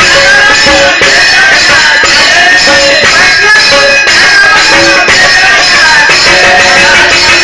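Indian music with melodic lines and steady percussion including a jingling tambourine-like beat.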